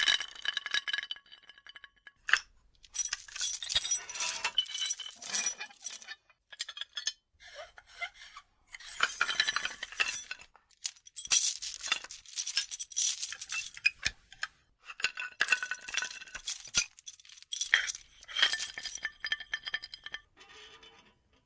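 Torture-rack sound effect: metal clinking and rattling in repeated irregular bursts, each with a bright ringing tone, separated by short pauses.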